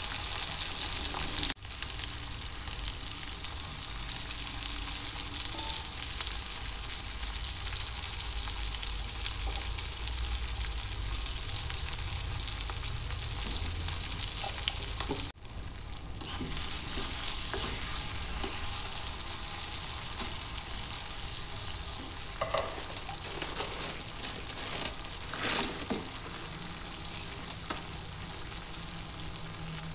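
Chopped bell peppers, onion, tomato and dried red chilli sizzling in oil in a wok: a steady frying hiss that breaks off for an instant twice, with a few louder scrapes of a stirring spoon in the second half.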